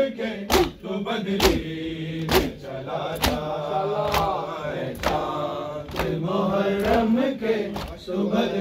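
Group of men chanting a noha, a Muharram lament, while beating their chests in matam. Sharp hand-on-chest slaps land about once a second, in time with the chant.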